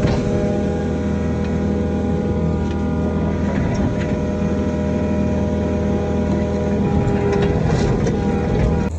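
Kobelco SK55 mini excavator's diesel engine running steadily under load while digging, with a few faint knocks.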